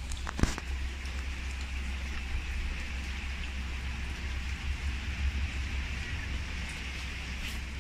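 Steady rain falling on a wet street and pavement, an even hiss of drops splashing into puddles, over a steady low rumble. There are a couple of sharp ticks about half a second in.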